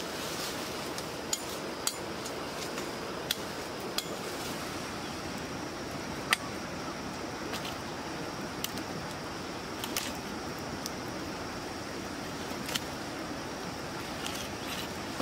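Wood campfire crackling: scattered sharp pops at irregular intervals over a steady hiss.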